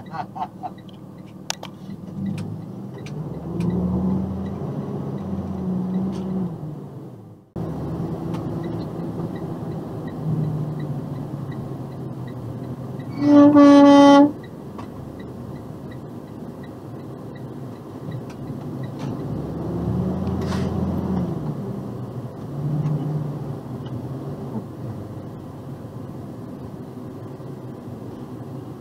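A truck air horn sounds once, a single steady blast of about a second about halfway through, over the steady running noise of the box truck's engine and tyres.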